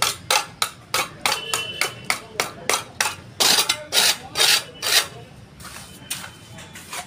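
Steel mason's trowel striking and scraping the concrete floor in quick repeated strokes, about two to three a second, a few of them drawn-out scrapes, thinning out to occasional knocks after about five seconds.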